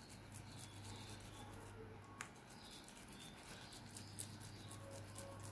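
Wet hands squeezing and rolling a soft minced chicken and potato mixture: faint sticky squelches and many small clicks, over a low steady hum.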